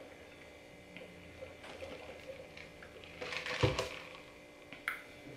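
Faint sipping of a drink through a straw from a plastic cup. About three and a half seconds in, a brief rustle and a low thump as the cup is set down on the table.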